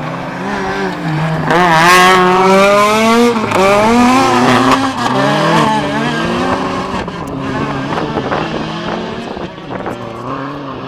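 Rally cars' engines at full throttle passing close by. The pitch climbs, drops back at each gear change and climbs again, and is loudest from about two to five seconds in. A following car's engine runs more faintly after that.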